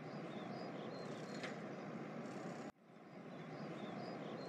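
Faint looped street ambience: a steady low rumble like distant traffic with small high chirps over it. It cuts out about two and a half seconds in and fades back up as the loop restarts.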